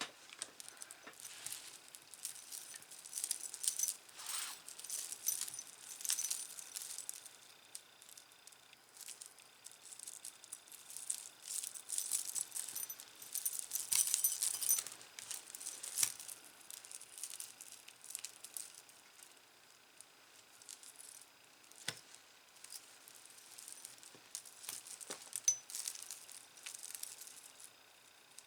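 Tangled metal jewelry chains and beads jangling and clinking as they are handled and pulled apart, with scattered small clicks and taps. A few sharper knocks come in the second half.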